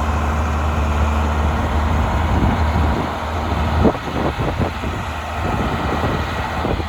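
An engine running with a steady low hum that cuts off suddenly about four seconds in, followed by scattered knocks and clatter, over a steady rushing noise.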